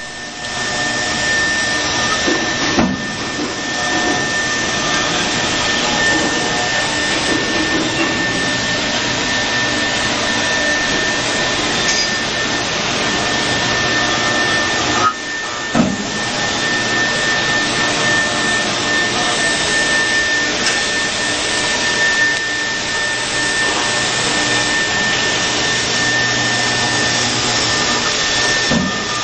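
Spindle of a 5-axis CNC router carving a block of wax with a slim bit: a steady high whine over the hiss of cutting, briefly dropping out about 15 seconds in.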